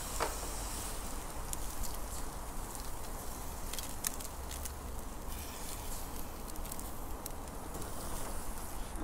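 King mackerel steaks and a strip of bacon sizzling over a gas grill on high heat, with the bacon fat flaring, and scattered sharp crackles and clicks throughout.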